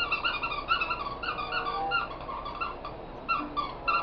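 A dog whining in a rapid run of short, high-pitched squeaks, several a second, pausing briefly about three seconds in.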